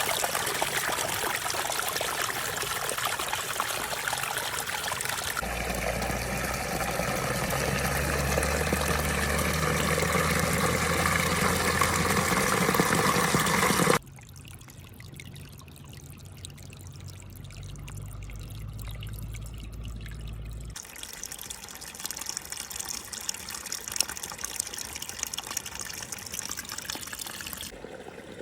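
Small waterfall splashing and trickling, loud at first, then cutting abruptly about halfway through to a much quieter rush of water. A low rumble runs underneath through the middle part.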